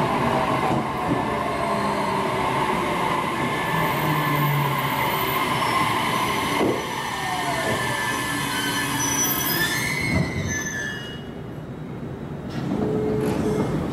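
JR Kyushu 815 series electric train pulling into the platform and braking to a stop, its wheels and brakes squealing in several high tones over the running rumble. The squeal dies down about ten seconds in as the train halts.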